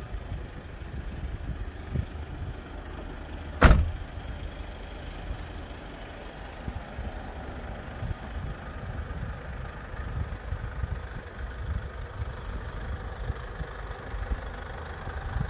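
Mercedes-Benz Vito 114 CDI van's four-cylinder diesel engine idling steadily. About four seconds in, a van door is shut with a single loud thump.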